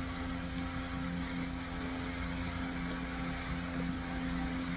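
Steady low mechanical hum with two constant low tones and no change in level.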